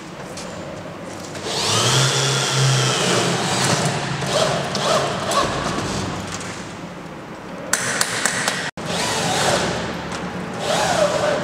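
A power tool whirs briefly about a second and a half in, its pitch rising and falling, followed by scattered metal knocks and clatter as the side guide rail of an aluminium roller shutter door is fixed in place.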